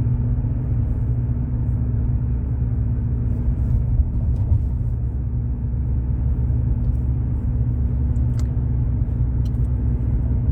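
Steady low rumble of a car on the move, engine and road noise, with a constant faint hum.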